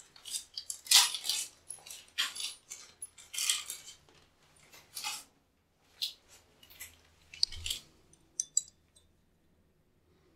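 Small metal mixer fittings clinking and a plastic parts bag rustling as they are handled: a quick run of clinks and rustles for about five seconds, then a few scattered clicks.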